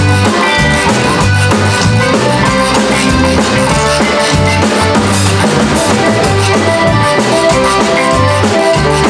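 Live Cajun band playing an instrumental passage with no vocals: accordion, rubboard, electric bass and drum kit, with a steady bass pulse and a regular drum beat under held accordion notes.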